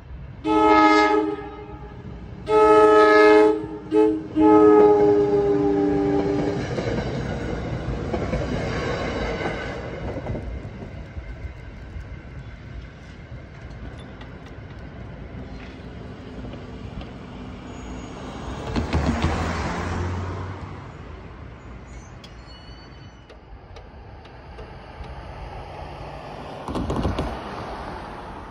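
Horn of a New Jersey Transit GE Arrow III electric multiple-unit train sounding a chord in the grade-crossing pattern of two long blasts, one short and one long, followed by the rumble of the train rolling past.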